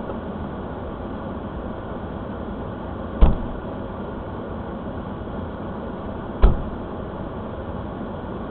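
Steady vehicle running noise, with two sharp thumps about three seconds apart.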